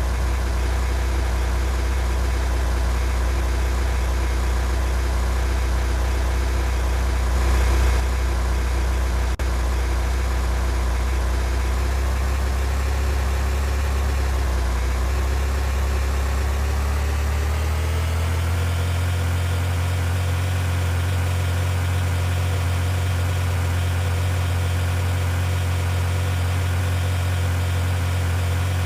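A vehicle engine running steadily. Its pitch rises gradually between about fifteen and eighteen seconds in, then holds at the higher pitch.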